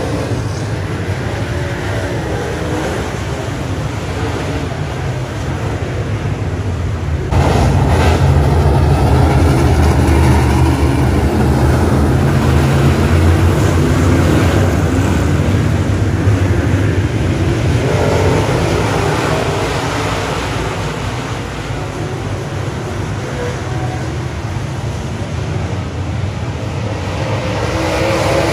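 Pack of dirt late model race cars running around the track, a dense engine rumble. It gets suddenly louder about seven seconds in as the field comes by close, eases off partway through, and builds again near the end.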